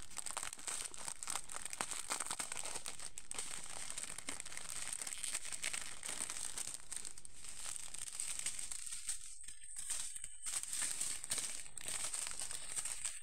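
Clear plastic bags crinkling and rustling as they are handled and turned over, a dense run of small crackles.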